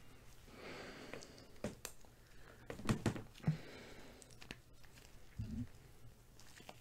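Quiet handling sounds of a collar being fastened around a neck: scattered light clicks and soft rustling, with the loudest few clicks about three seconds in.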